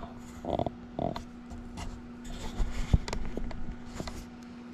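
Small plastic and resin charms being handled and set down: light clicks, taps and rustling, with a sharper tap about three seconds in, over a steady low hum.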